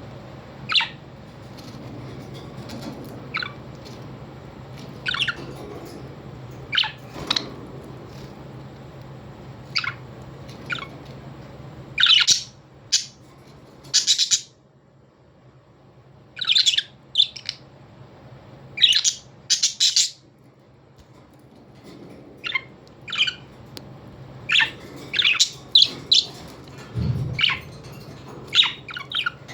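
Birds calling in short, sharp chirps and squawks, coming in scattered clusters with brief lulls, over a faint steady low hum.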